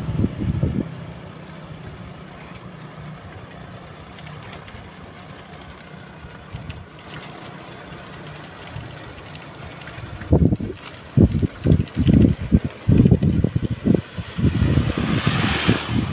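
Wind and road rumble on the microphone of a camera riding on a moving bicycle: a steady low hum for the first part, then irregular loud low gusts from about two-thirds of the way in.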